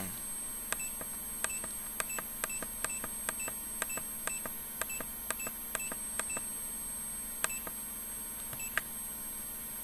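DJI FPV Goggles V2 giving short beep-clicks as its settings menu is scrolled, about twenty at irregular spacing, most of them in the first six seconds. A faint steady electronic hum runs underneath.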